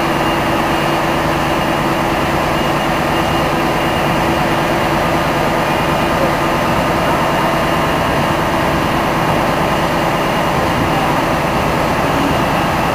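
Heavy diesel engine running steadily at an even pitch: the power pack of the self-propelled modular transporter carrying the rail bridge span.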